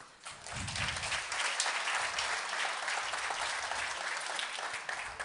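Audience applauding, starting a moment in and holding steady.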